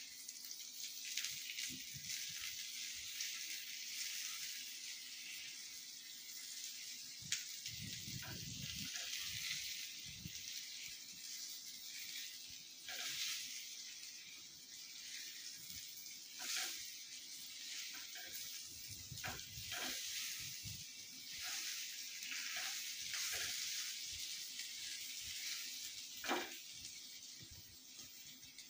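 Oil sizzling steadily in a nonstick frying pan as steamed patra pieces fry with mustard and sesame seeds over high heat. Occasional short scrapes and taps of a silicone spatula turning the pieces.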